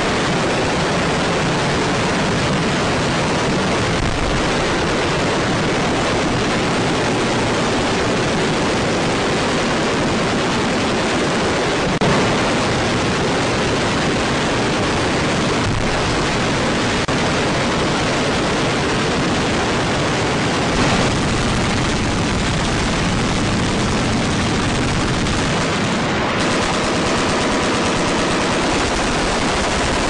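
Massed machine-gun fire, many guns firing at once in one continuous fusillade with no gaps between shots.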